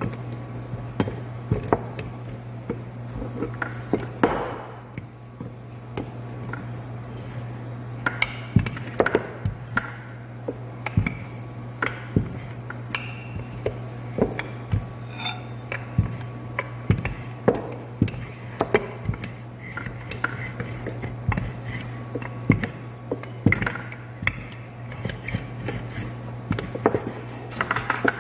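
Rolling pin rolling thin dough rounds on a kitchen counter, with irregular knocks and clacks as the pin is pressed, lifted and set down, over a steady low hum.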